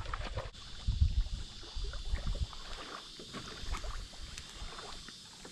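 Kayak moving on the water: small splashes and water lapping at the hull, with irregular low rumbles.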